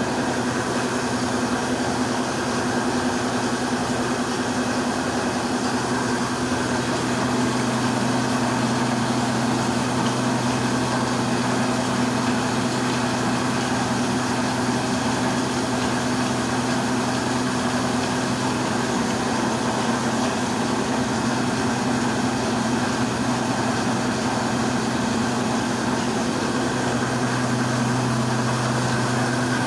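24-inch atta chakki (stone flour mill) driven by a 10 hp electric motor, running steadily: a constant hum with dense noise over it. The hum grows stronger near the end.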